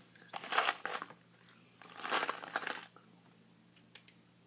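Two short bursts of crinkling from a Bertie Bott's Every Flavour Beans box being handled, about half a second in and again about two seconds in.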